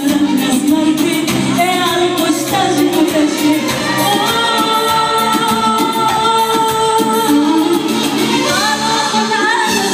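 Live Assyrian wedding music: a singer with an amplified band, the vocal line bending in pitch and holding long notes through the middle.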